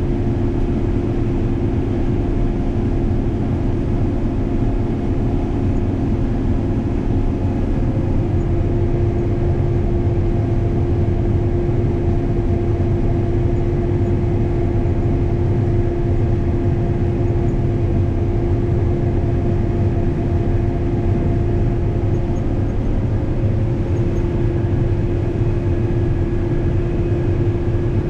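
Combine harvester running steadily while cutting corn: a continuous machine drone with a few held tones, one of which changes about eight seconds in.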